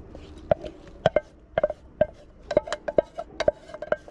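A dog lapping water from a bowl: quick, uneven clinks, about three a second, each leaving the bowl ringing briefly.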